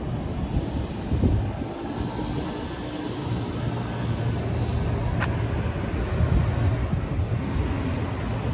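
Steady low rumble of city street noise, with a short sharp click about five seconds in.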